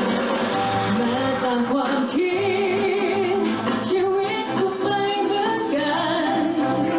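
Pop song with a woman singing the melody over instrumental backing.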